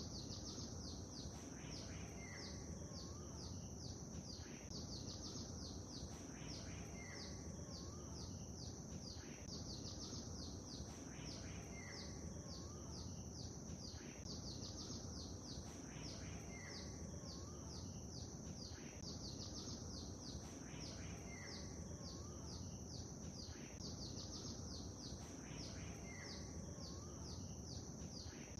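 Songbirds chirping in quick, high phrases, with a short call repeating about every one and a half seconds, over a steady low wash of lake water.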